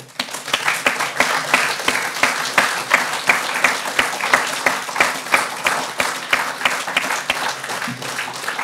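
Audience applauding: many hands clapping in a dense clatter that starts abruptly and holds steady, with single sharp claps standing out.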